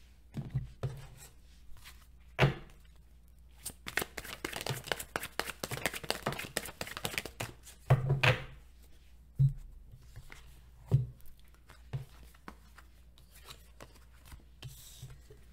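Tarot cards being shuffled and laid on a table: a few seconds of rapid papery clicking in the middle, with separate sharp taps spread through as cards are knocked or set down.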